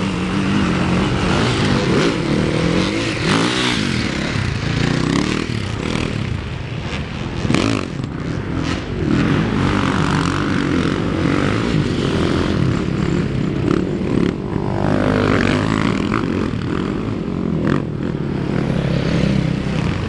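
Dirt bike engines running hard, their pitch rising and falling as they rev, with a short sharp clatter about seven and a half seconds in.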